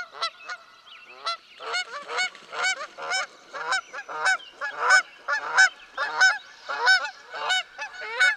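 Four-week-old Weimaraner puppies crying and yelping in a rapid series of short, high-pitched cries, about two a second. The cries grow louder after a brief lull about a second in.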